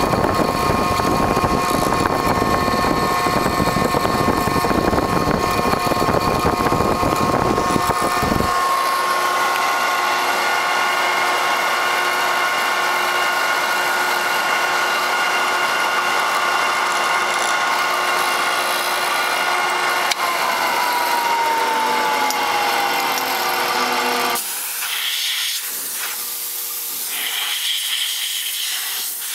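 Circa-1963 Powermatic Model 10 hollow-chisel mortiser, run off a phase converter, cutting a quarter-inch mortise in wood. There is a dense cutting noise for about the first eight seconds, then the machinery runs on with steady whining tones. About twenty seconds in, one whine falls in pitch as a motor winds down, and near the end a compressed-air blow nozzle hisses in short blasts.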